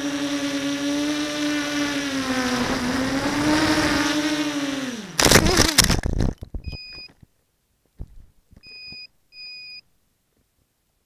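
Orange Dragon-Bone tricopter's electric motors whining steadily, dipping and rising in pitch, then spinning down about five seconds in as it crashes into a tree, with a loud burst of propellers clattering through branches. Three short electronic beeps follow.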